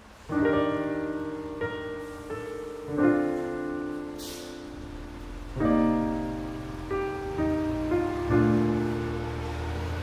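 Background music of slow piano chords, each chord struck and left to ring.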